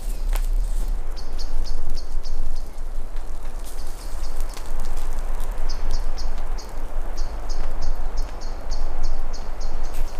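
Steady rain hiss in a forest, with a campfire crackling a few times near the start. Over it a small bird calls runs of short, high, evenly spaced notes, about four or five a second, in several bursts.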